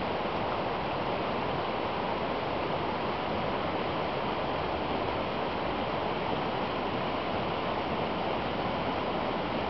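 A cascading brook running high with spring flood water: a steady, even rush of falling water.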